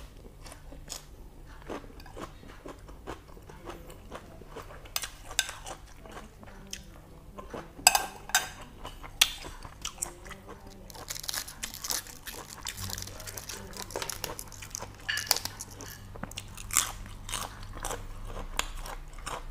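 A person chewing a mouthful of crisp lettuce wrapped around boiled pork intestines: irregular crunching and biting clicks, busiest a little past halfway, over a faint steady low hum.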